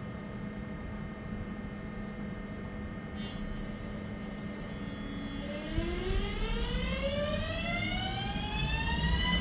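Siemens Desiro ML (ÖBB Cityjet) electric multiple unit standing with a steady electrical hum. A little past halfway it starts pulling away, and its traction drive gives a whine of several tones climbing together in pitch as the train gathers speed and grows louder.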